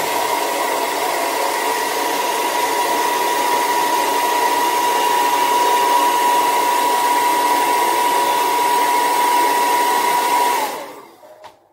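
Handheld hair dryer running loud and steady, blowing air with a constant high motor whine over a rushing hiss. It is switched off about ten and a half seconds in, and the whine and airflow die away.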